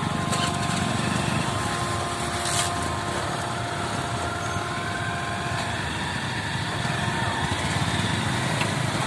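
Several small motorcycle engines idling together in a queue of traffic, a steady running sound.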